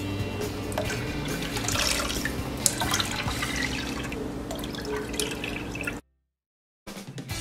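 Cold water poured from a glass measuring cup into a glass bowl of dissolved strawberry gelatin, splashing and dripping as it is stirred with a silicone spatula. It cuts off suddenly about six seconds in.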